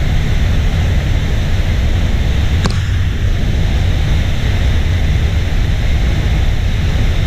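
Waterfall pouring into its plunge pool: a loud, steady roar of falling water, heavy in the low end, with a brief faint click about two and a half seconds in.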